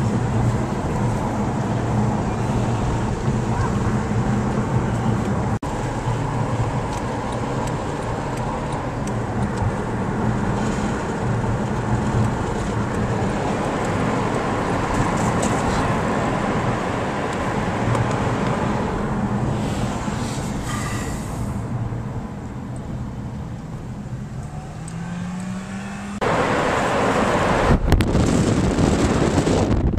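Car engine and tyre and road noise heard from inside a moving car. The engine note rises as the car speeds up, then the road and wind noise suddenly gets much louder near the end.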